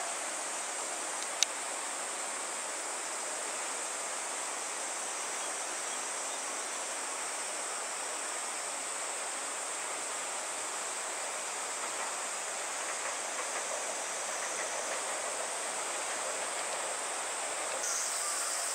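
Steady rushing of a mountain river over rapids, with a continuous high-pitched drone of insects over it.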